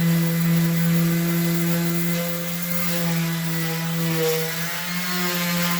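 Electric power sander running steadily with 100-grit paper against the rusty metal of a jointer table, a steady motor hum over a gritty scrubbing hiss, taking off the rust.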